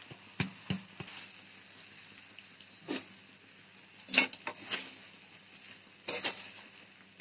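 A metal spatula scraping and clattering against a metal pan as soaked raw rice is stirred in it, in two short spells about four and six seconds in. Before that there are a few light single clicks as the rice is tipped in from a plastic bowl.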